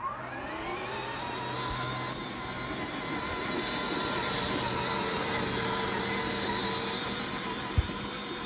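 A motor's drone climbs in pitch at the start, then holds steady and swells a little in the middle. Near the end comes one sharp smack of a volleyball being hit.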